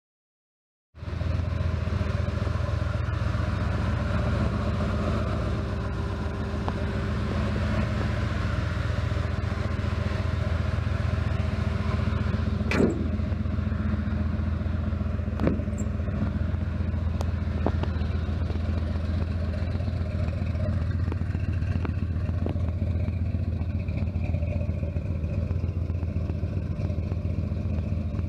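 Fresh 454 big-block V8 of a 1970 Chevrolet C10 pickup idling steadily, with a few sharp clicks partway through.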